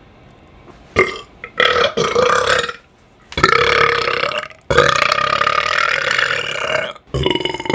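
A man belching on purpose, loudly and one burp after another: a short burp about a second in, then four long drawn-out belches of one to two seconds each, the last still going at the end.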